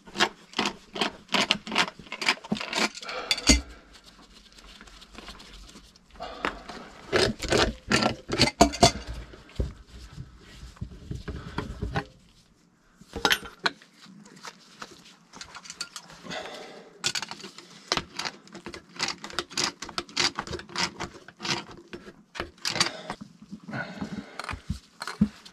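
Metal wrenches clicking and clanking against threaded brass plumbing fittings while the fittings are worked and tightened together, in runs of quick sharp clicks broken by short pauses.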